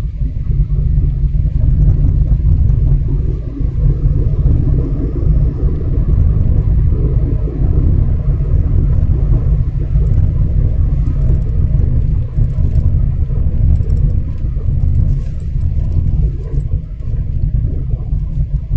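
Car driving at steady speed, heard from inside the cabin: a constant low rumble of road and engine noise.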